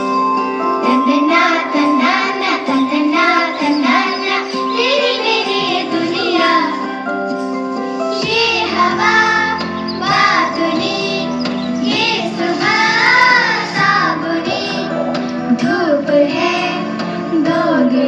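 Children's choir singing a song with instrumental backing of held chords; a deeper bass part comes in about eight seconds in.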